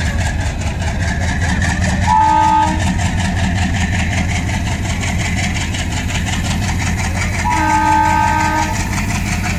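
Train horn sounding twice over a steady low locomotive rumble: a short blast about two seconds in, then a longer one near the end. Both blasts are several notes sounding together, the horn signalling the passenger train's departure.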